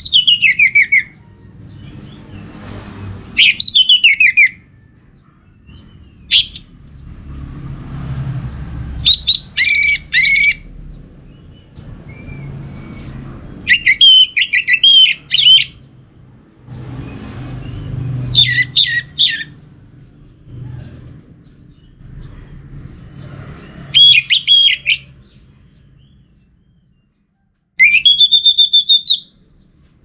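Orange-headed thrush singing: about seven loud phrases of quick falling whistles and trills, each about a second long, with pauses of a few seconds between them. The last phrase rises into a held whistle. A low background rumble fills the gaps.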